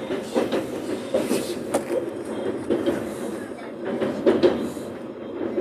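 Suburban electric train running, heard from inside the carriage: a steady rumble with irregular clatter and knocks from the wheels on the track.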